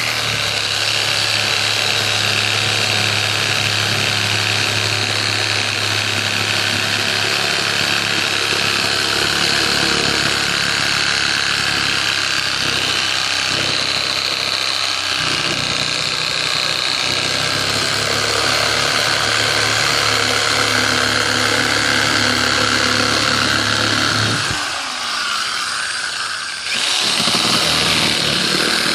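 A motor-driven machine running steadily; its low hum cuts out for about two seconds near the end, then starts again.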